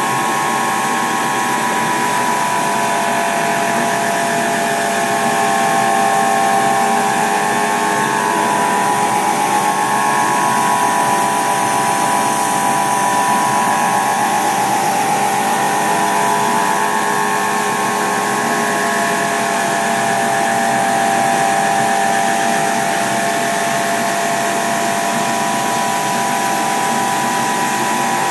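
Laser cutting machine running as its head cuts lines into a flat die board: a steady mechanical hum with several held whining tones that waver slightly.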